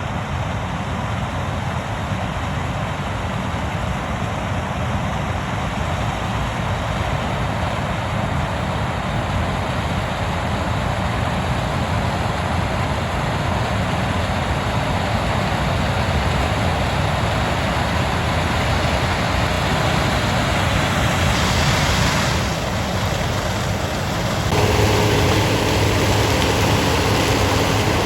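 Corn-harvesting machinery engines running steadily, with a deeper, steadier engine hum coming in near the end.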